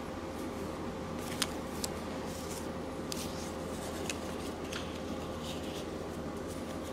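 Clear plastic photo sleeves and paper crinkling as they are handled, with several short crackles, the sharpest about a second and a half in. Under them runs a steady low hum.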